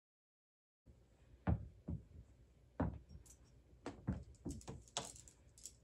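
Silence for just under a second, then a series of short, light knocks and taps, about eight, irregularly spaced, over quiet room background.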